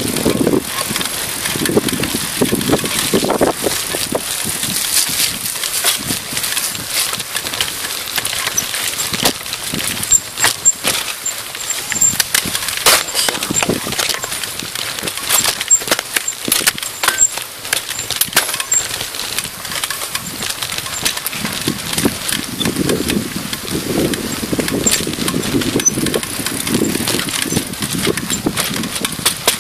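Mountain bike riding fast down a rough, stony dirt trail, heard from a handlebar-mounted camera: continuous rattling with many sharp knocks and clatters as the bike hits stones and bumps, over wind on the microphone. The low rumble swells near the start and again for several seconds near the end.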